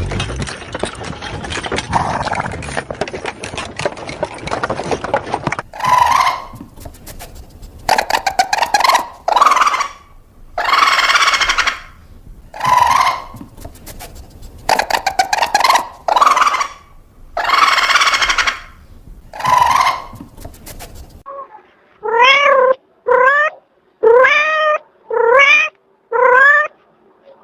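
A cat meowing: five short meows that rise and fall near the end. Before them come about eight harsher animal calls, each about a second long, and at the start a noisy stretch with rapid clicking.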